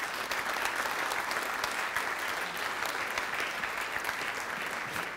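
Audience applauding steadily in an auditorium.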